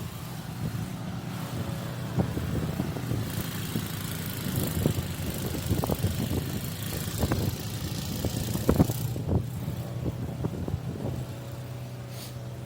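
A motor vehicle's engine idling with a steady low hum, under irregular short knocks and scrapes. A hiss rises over it from about three seconds in and drops away again near nine seconds.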